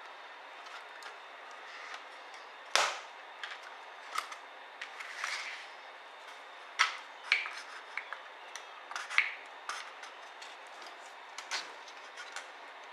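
Irregular clicks and taps of a ThinkPad T60p laptop's plastic and metal parts being handled during disassembly, with one sharper knock about three seconds in.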